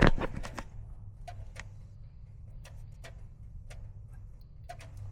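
Scattered light clicks and taps of hands working on equipment, with a louder knock at the very start, over a low steady hum.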